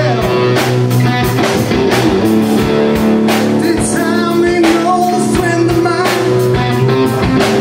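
Blues-rock band playing live: electric guitar chords over a drum kit, with a man singing into the microphone.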